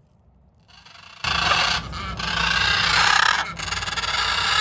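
Blue-and-gold macaws screeching: loud, harsh, raspy calls starting about a second in, running in several long calls with short breaks between them.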